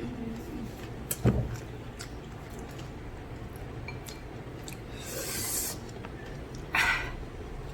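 A person eating noodles: light clicks of cutlery against a dish, one sharper knock about a second in, and short breathy rushes of air near the middle and near the end, typical of slurping hot, spicy noodles.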